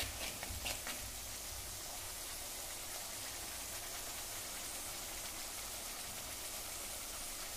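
Ginger and garlic paste sizzling in hot oil in a clay kadhai, a steady even hiss. A few metal spoon scrapes against the clay pot in the first second.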